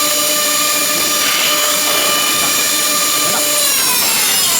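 CNC router spindle running with a steady high-pitched whine over machine noise. Near the end its pitch falls as the spindle starts to spin down.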